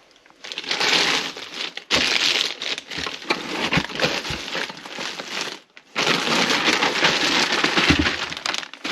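Packing material rustling and crinkling as an exhaust muffler is unwrapped and lifted from its box, in long stretches with a couple of brief pauses and a few light knocks.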